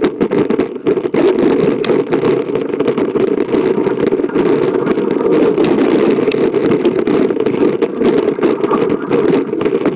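Wind buffeting the microphone as a mountain bike descends fast over rock and dry dirt, with many short clicks, rattles and scrapes from the tyres and bike over the rough ground.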